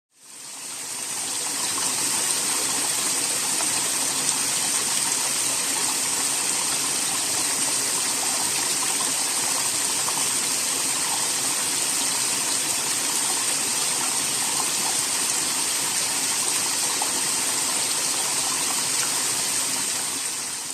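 Small waterfall: water splashing and rushing steadily, fading in over the first couple of seconds.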